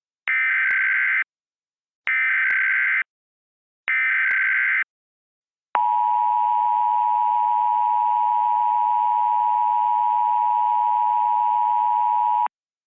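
Emergency Alert System tones. Three SAME header data bursts of about a second each, a second apart, are followed by the steady two-tone attention signal, held for about seven seconds and cut off sharply. Together they herald an emergency alert, here a tornado warning.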